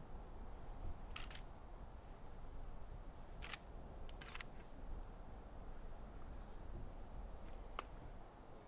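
Camera shutters clicking a few times: once, then once more, then a quick pair, then a last single click. Under them runs a faint steady low rumble.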